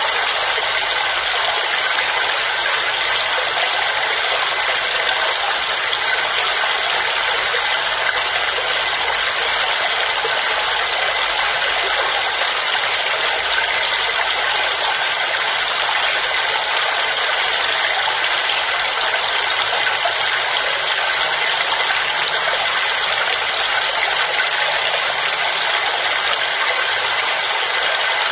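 Waterfall: a steady, unbroken rush of falling water, mostly hiss with little deep rumble.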